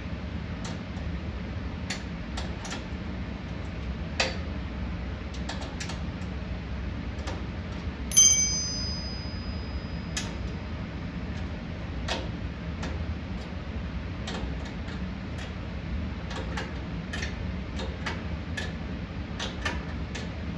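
Irregular metallic clicks and ticks of a wrench or ratchet and hardware as nuts and bolts are fastened on the rear bumper brackets, with one loud ringing metal clink about eight seconds in, over a steady low hum.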